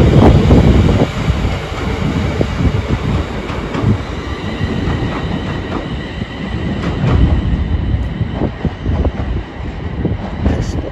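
A train running past on the track, with a loud rumble and wheels knocking over rail joints. It is loudest in the first second and then eases a little.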